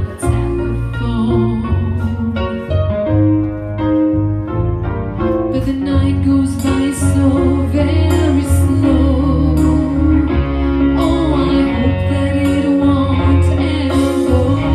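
Music with a drum beat, a bass line and a melody on top, loud and continuous.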